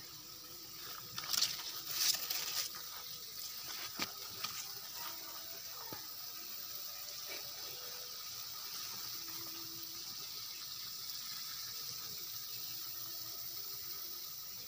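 King grass leaves rustling and brushing close by, loudest a few times in the first seconds, over a steady high-pitched hiss.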